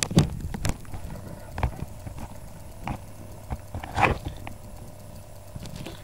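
Handling noise from a handheld camera: a few irregular knocks and thumps, loudest just after the start and about four seconds in, over a low steady hum.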